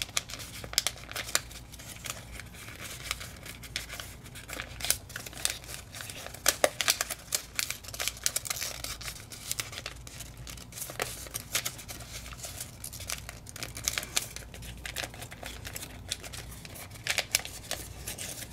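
Folded paper crinkling and crackling in quick, irregular clicks as fingers pinch and crease its many layers, working an origami pleat sink.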